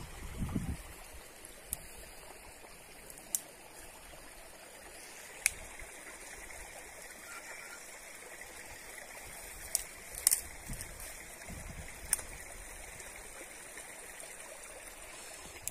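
Steady rushing and trickling of a small creek, with a handful of sharp clicks and snaps scattered through it. The loudest clicks come about five and ten seconds in.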